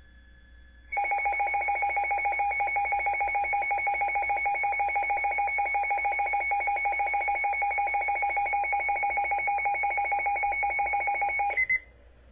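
Emergency alert attention signal: a loud, rapidly pulsing two-tone alarm that starts about a second in, runs for about ten seconds and cuts off abruptly, followed by two short high beeps near the end. It announces a severe weather bulletin, here a wind warning.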